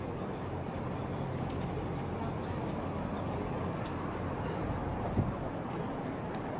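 City street ambience: a steady din of traffic, with one short knock about five seconds in.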